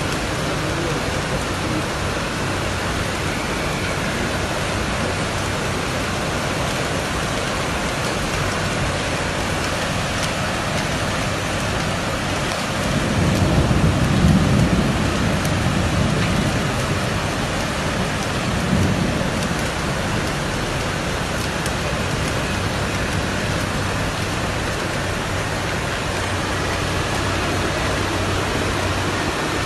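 Heavy rain pouring down in a windstorm, a steady loud hiss. About halfway through, a deep rumble swells up for a few seconds, and it comes back briefly a little later.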